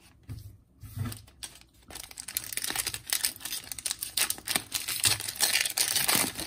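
Foil wrapper of a 2021-22 Donruss Soccer trading-card pack crinkling and tearing as it is pulled open by hand, a few light clicks at first, then a dense crackle from about two seconds in, loudest near the end.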